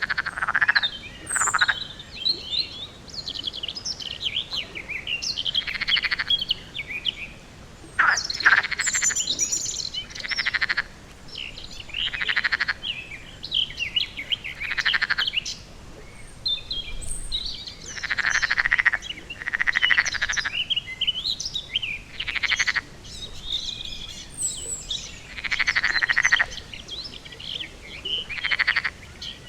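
Pond frogs croaking, a chorus of rasping calls each under a second long, repeating every second or two, with small birds chirping higher up.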